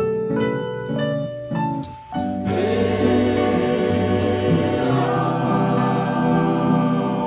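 A mixed choir sings a held chord with plucked acoustic guitar accompaniment. Short plucked notes lead for about the first two seconds, and then the choir comes in with a sustained chord.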